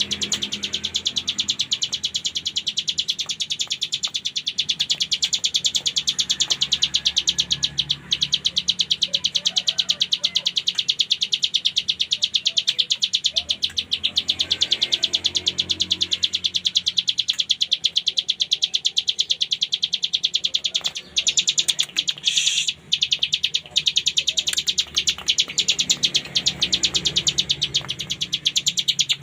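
Ciblek gunung (a prinia) singing in 'ngebren' style: a very fast, unbroken drill-like run of high, sharp notes, with a few brief breaks about three-quarters of the way through.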